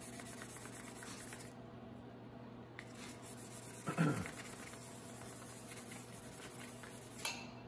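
Wet/dry 600-grit sandpaper soaked in WD-40 rubbed back and forth by hand over a steel body-hammer face: a soft, faint rubbing that polishes out fine scratches. A brief sound sliding downward in pitch about four seconds in.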